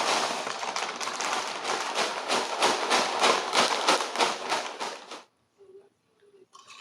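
Potato chips (Calbee honey butter and Piattos cheese) being shaken together in a crinkly snack bag: a rapid rattling rustle that cuts off suddenly about five seconds in.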